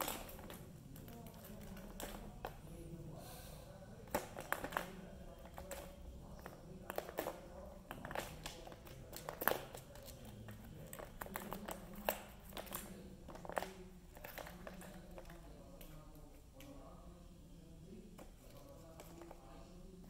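Plastic balls knocking and rattling in the tracks of a plastic tower-of-tracks cat toy as kittens bat at them: scattered sharp clicks and taps, busiest in the middle stretch and thinning out towards the end.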